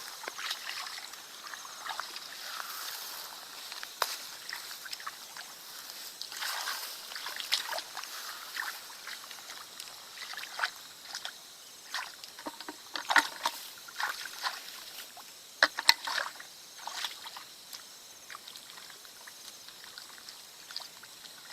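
Water sloshing and splashing in irregular small bursts, with a few sharper splashes past the middle.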